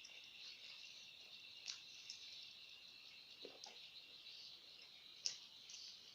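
Quiet eating sounds: soft mouth clicks and chewing, with one sharper click about five seconds in, over a steady faint high-pitched hiss.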